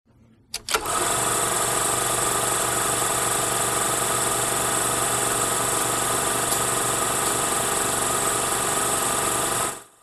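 Film projector sound effect: two clicks about half a second in, then a steady mechanical rattle that cuts off suddenly near the end.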